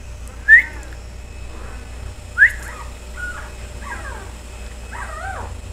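Newborn puppies squealing and whimpering: two sharp rising squeals about half a second and two and a half seconds in, then a few softer, wavering whines.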